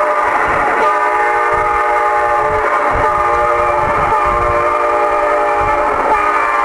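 A Galaxy DX-98VHP radio's speaker carrying a strong signal on channel 19. It plays a sustained horn-like chord of several tones that shifts to new pitches every second or two.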